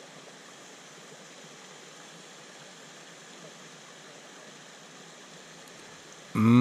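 Steady rush of a creek running over rocks. Just before the end, a man's voice starts a loud sound that falls in pitch.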